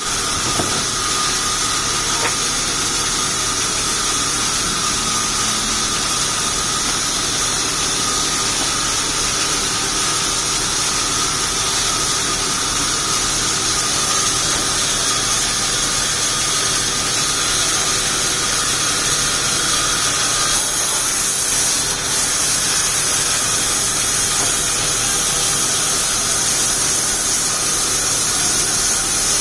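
Sawmill saw machinery running steadily, a loud continuous mechanical noise with a high-pitched whine throughout.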